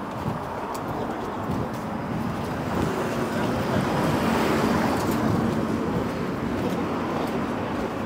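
A car driving past on the street: its road noise swells to a peak about halfway through and then fades away.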